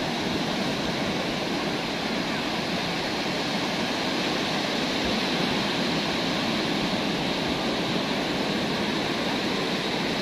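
Steady rush of ocean surf breaking and washing up on a sandy beach.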